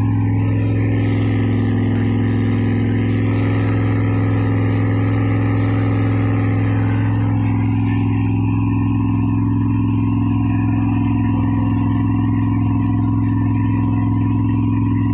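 Freshly rebuilt 1972 Pontiac 350 V8 engine running at a steady idle.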